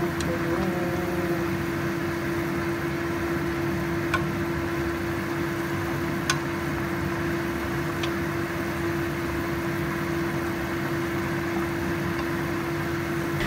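Water at a rolling boil in a wide metal pan under a steady motor-like hum, with a few light taps of wooden chopsticks against the pan.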